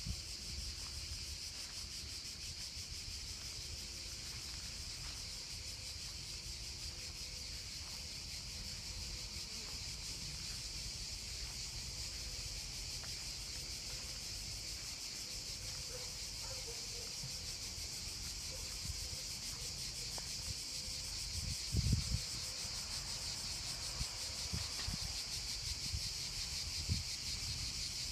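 Insects buzzing in a steady high-pitched drone over a low rumble of wind on the microphone, with a couple of heavier gusts about three quarters of the way through.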